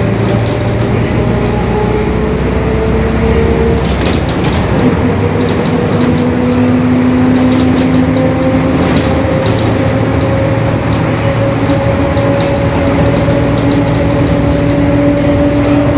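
Mercedes-Benz OF-1721 city bus running under way, its drivetrain whine rising slowly in pitch as it gathers speed: a growling differential. Light rattling clicks come in from about four seconds in and die down a few seconds later.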